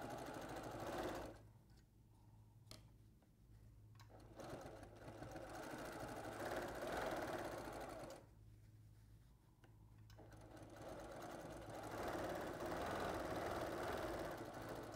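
Brother domestic sewing machine running a stitch-regulated free-motion quilting stitch through a quilt guided along a ruler. It runs in three spells and stops twice for a couple of seconds each, as the stitch regulator starts and stops the needle with the fabric's movement.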